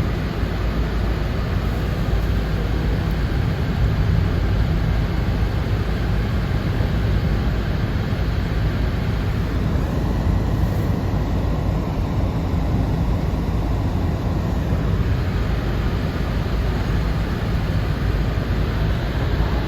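Steady low rumble of a car driving: tyre, road and engine noise heard from inside the cabin, unchanging throughout.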